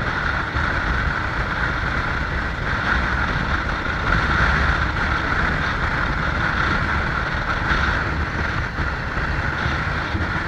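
Steady road and wind noise from a vehicle on the move: a constant low rumble with a hiss over it that keeps an even level throughout.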